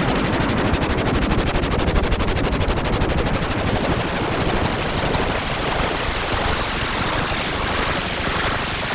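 Sci-fi sound effect of rapid automatic fire: a loud, dense train of fast, even pulses that eases slightly in the second half.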